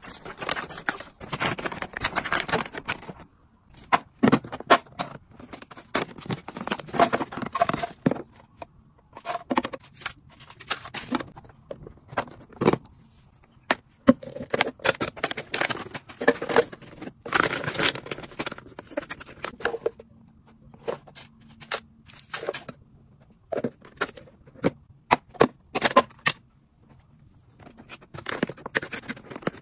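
Hands handling plastic storage containers, lids and packets: irregular clicks, taps and plastic rustling, with short pauses between.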